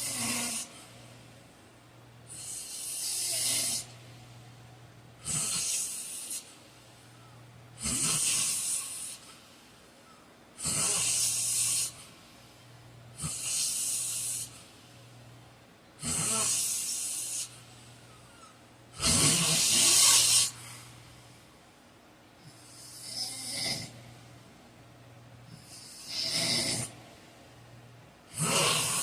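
A heavy-set man snoring in his sleep: a steady rhythm of breathy, hissing snores about every two to three seconds, the loudest a little past the middle, with a faint low hum between breaths.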